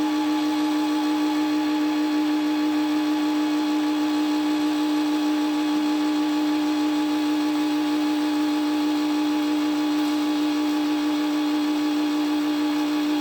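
Brother CE5500 sewing machine's motor running at a constant speed with a steady whine, driving the bobbin winder as thread winds onto the bobbin.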